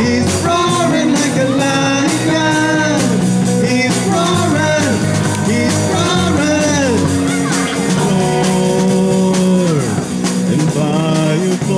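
Live rock-style worship band playing: drum kit, electric bass, electric guitar and keyboard, with singing over the top.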